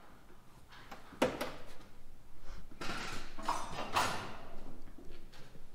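Metal clanks and scrapes of tools and parts being handled in an engine bay, with a sharp knock about a second in.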